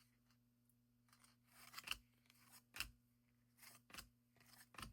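Faint handling of trading cards and their packs: about five short rustles and clicks of card stock and wrapper, spread over a few seconds.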